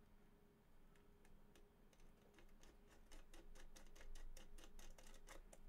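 Faint, quick clicking and ticking of small metal screws and mounting hardware being handled, the clicks coming faster and closer together in the second half.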